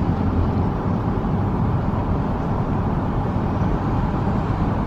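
Steady road and engine noise of a car driving on a paved road, heard from inside the cabin: an even low noise with no breaks.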